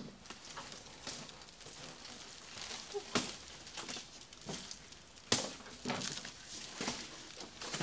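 Large cardboard box being dragged and tilted: cardboard scraping and rustling, with two sharp knocks, about three and five seconds in.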